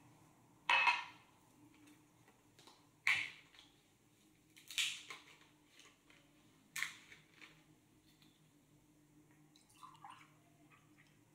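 A drinking glass set down on a stone countertop with a ringing clink, followed by a few sharp knocks and taps as a cardboard juice carton is picked up and opened. Near the end, orange juice pours softly from the carton into the glass.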